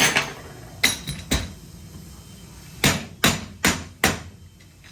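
About seven hammer blows on a steel oilfield X-lock, sharp metallic knocks with a short ring, coming singly and in quick runs of two to four.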